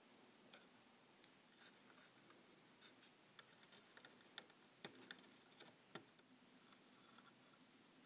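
Near silence with a faint steady low hum, and faint small clicks and scratches as wire leads and heat shrink tubing are handled while an LED is being soldered; the clicks come thickest in the middle.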